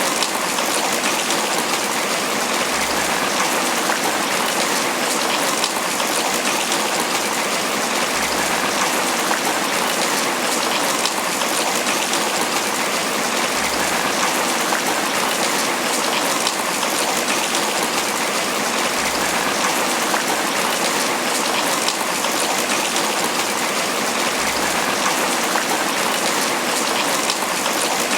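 Steady tropical rain pattering on banana leaves, a dense, even hiss of drops that holds constant throughout.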